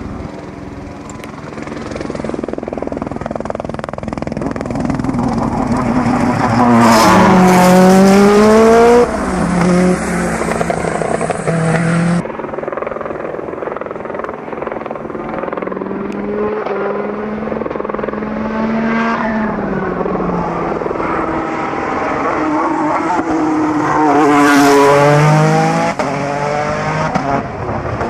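Peugeot 208 T16 Pikes Peak race car's twin-turbo V6 accelerating hard, its pitch climbing and then dropping at each gear change. It goes through two runs of several shifts, swelling loudest as the car passes close.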